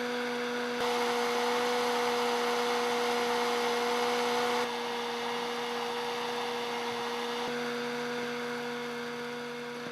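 Vintage DeLuxe Admiral 12018 electric hair dryer running: a steady motor hum with the rush of its fan. The sound steps up in loudness about a second in and drops back about halfway through.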